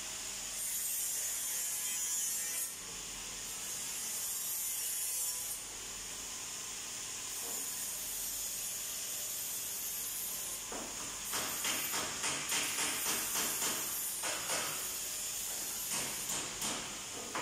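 Metal-shop noise: a steady high hiss that switches on and off in stretches, then a run of quick, evenly spaced scraping strokes, about three a second, like a hand tool being worked back and forth.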